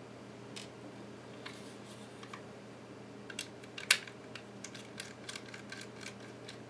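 Light clicks and taps of a small screwdriver and screws being worked on a laptop hard drive's metal caddy, with one sharper click about four seconds in and a run of quick light clicks after it, over a faint steady hum.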